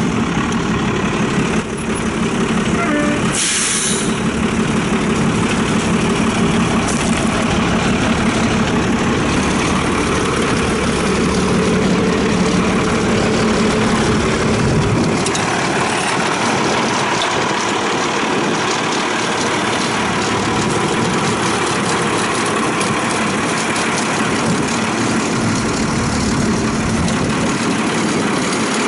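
12-valve Cummins turbo diesel inline-six of a yard tug idling steadily. A brief hiss comes about three and a half seconds in, and the deep low end of the rumble drops away about halfway through.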